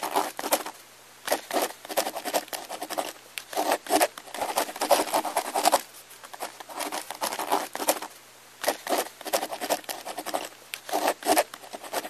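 Crimson rosella pecking and cracking seed and corn on a painted rail: irregular quick clicks and crunches of beak on food and wood, with a few short pauses.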